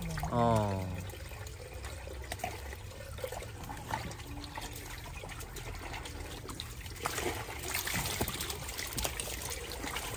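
Water trickling and pouring, with small clicks and knocks; the water noise grows fuller about two-thirds of the way in. A short falling vocal sound comes right at the start.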